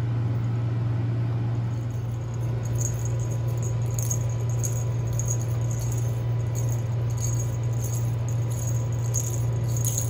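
Faint, irregular jingling and rattling of a cat's wand toy with a purple ball being batted about, over a steady low hum.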